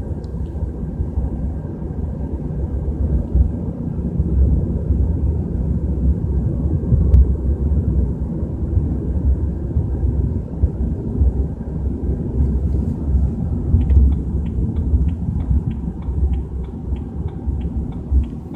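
Low rumbling inside the cabin of a BMW 320i driving at about 30 to 40 km/h: the unexplained rumble that the car shows at that speed. A run of light, evenly spaced ticks, about two or three a second, starts near the end.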